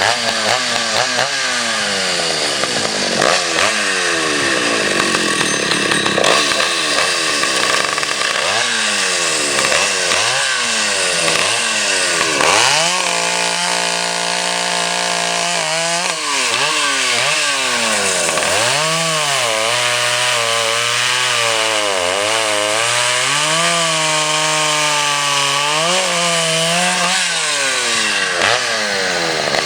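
Chainsaw cutting wood, its engine pitch repeatedly dropping as it bogs under load in the cut and climbing again as it frees up, with a few seconds of steady running about halfway through.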